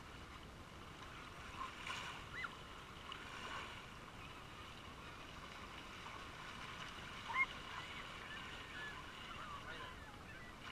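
Faint steady wash of small waves at a sandy shoreline, with a few short high-pitched cries from far off, the sharpest about seven seconds in.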